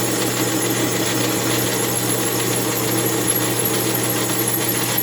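Metal lathe running steadily, turning the base of an Echo CS-8000 chainsaw on a mandrel in light passes of about ten thousandths each. A constant hum carries a high, thin whine above it.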